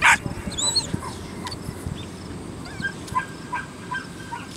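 A puppy yipping and barking in short, high calls as a bitework helper agitates it, with a quick run of yips near the end. A single sharp crack sounds right at the start and is the loudest thing.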